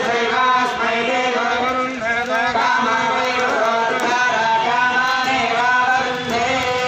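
Hindu mantras chanted by several voices in a sing-song melody, over a steady held tone.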